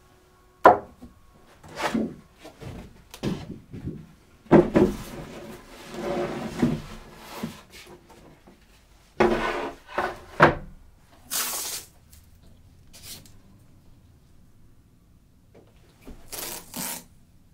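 Wooden handling sounds: a series of separate knocks, bumps and scrapes, with short hissing rubs near the end as a large panel is moved on a wooden worktable.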